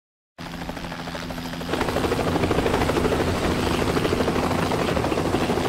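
Helicopter flying low overhead: its rotor beats rapidly over a steady engine tone, and it gets louder a little under two seconds in.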